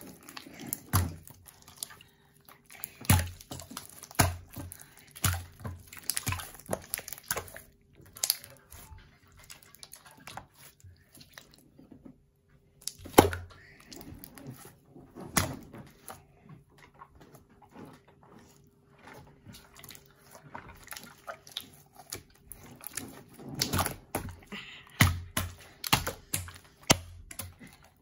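Soft pink slime being pressed, stretched and slapped by hands on a tabletop: irregular wet squishes with sharp clicks and pops, a few louder slaps now and then.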